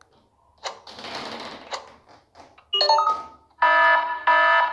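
Stock sound effects playing one after another: clicks and a short swoosh, a brief chime, then near the end an electronic ringing in evenly repeated pulses about half a second long, like a phone bell or alarm.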